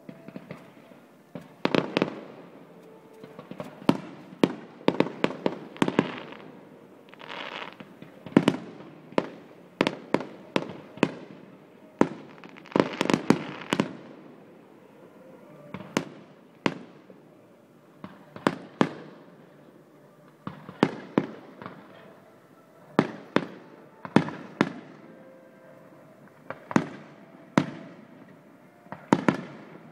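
Fireworks display: a long run of sharp shell bursts going off irregularly, often several in quick succession, with crackling and hissing between some of the bangs.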